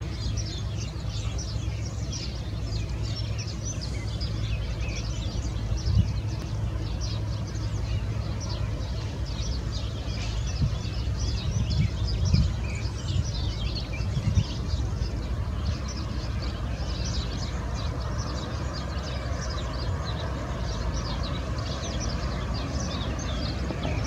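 Birds chirping and singing continuously over the steady low drone of an orchard sprayer running as it sprays the trees. A few dull bumps come around the middle.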